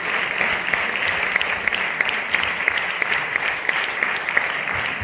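Theatre audience applauding steadily as the performers walk on stage.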